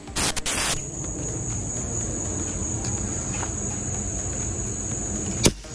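A Bug-A-Salt salt gun is cocked with a short double rasp at the start, over a steady high-pitched insect drone. About five and a half seconds in, the gun fires once with a single sharp crack.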